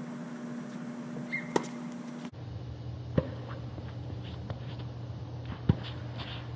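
Tennis ball struck by racquets in a rally: three sharp pops about two seconds apart, the last the loudest, over a steady low hum.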